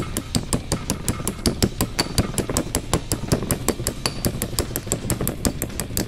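Rapid metal-on-metal taps, about five a second at an even pace, as a steel rod drives a 6204 ball bearing down into its seat in a motocarro differential pinion housing.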